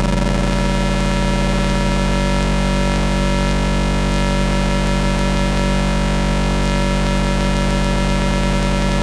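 Astrogorus synthesizer playing harsh drone noise: a loud, steady low drone made of many held tones stacked together, over a bed of hiss.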